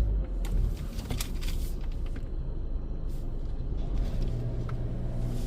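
Low rumble of a car, heard from inside the cabin as it pulls into an automatic car wash bay, with a few light clicks. A steady low hum comes in about four seconds in.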